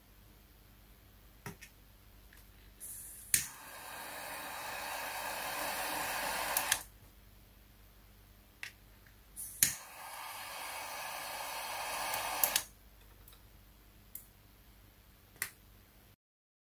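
A handheld lighter lit twice, each time with a sharp click and then a few seconds of flame hiss that grows louder, heating an LED bulb's circuit board from below to loosen its SMD LEDs. Small clicks of tweezers and handling fall between the burns.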